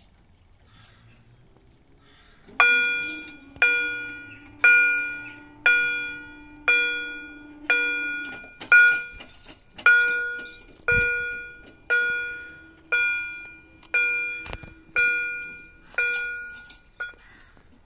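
Railway level crossing warning bell striking about once a second, each stroke ringing out and dying away before the next. The warning signals that a train is due and the barriers are down.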